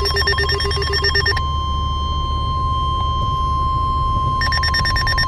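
Weather-radio emergency alert: a steady single-pitch attention tone of about 1 kHz, the NOAA Weather Radio warning alarm tone that announces a severe thunderstorm warning. A fast electronic trilling ring sounds over it for about the first second and a half and comes back about four seconds in. A low road rumble runs underneath.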